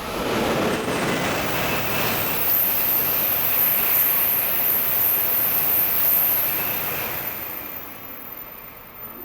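Shinkansen bullet train running through a station at full speed without stopping: a loud rush of air and wheel noise that rises suddenly, holds for about seven seconds with a thin high whine above it, then fades away.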